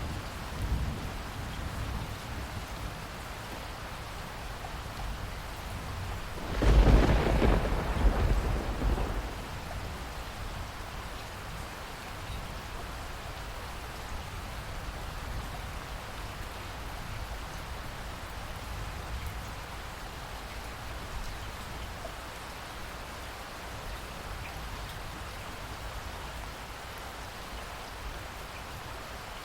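Heavy rain falling steadily, with a loud clap of thunder about seven seconds in that rumbles on for two to three seconds before the rain alone is left.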